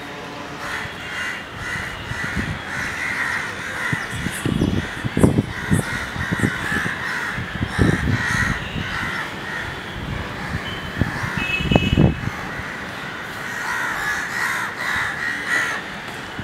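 Many crows cawing again and again. Gusts of wind buffet the microphone several times, and these are the loudest sounds.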